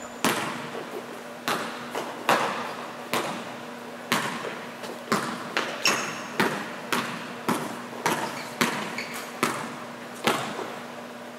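Basketball being dribbled on a gym floor during one-on-one play: a run of bounces, roughly one to two a second and unevenly spaced, each echoing in the large gym.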